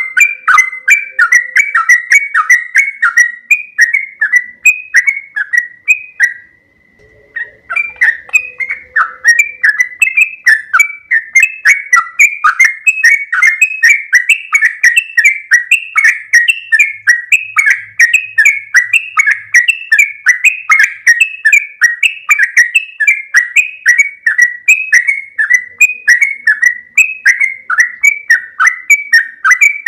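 Yellow-vented bulbul (trucuk) singing a long, fast run of repeated bubbly notes with no breaks, the continuous 'ropel panjang' song. There is one brief pause about six seconds in.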